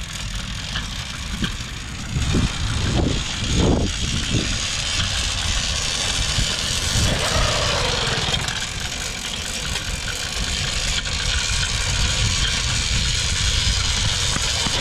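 An 80cc two-stroke motorized-bicycle engine being turned over as someone tries to start it, running unevenly and trying to catch, with a few surges a couple of seconds in.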